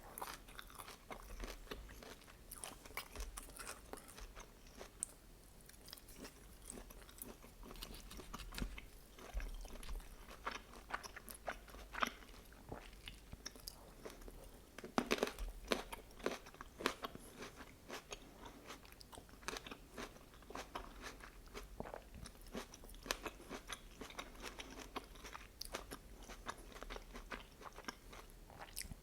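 Close-miked chewing and biting of food: a steady run of short, sharp crunchy clicks and wet mouth sounds, busiest and loudest about halfway through.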